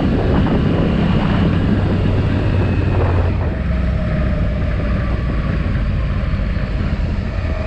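Yamaha R1's inline-four engine running while riding, with wind noise on the microphone. The engine note is steady, then eases and gets a little quieter about three seconds in.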